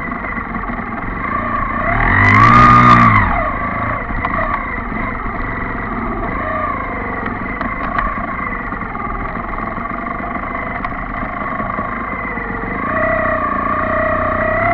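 Distorted-guitar rock music plays steadily. About two seconds in, a sidecar trials motorcycle's engine revs up and falls back over the music, the loudest moment.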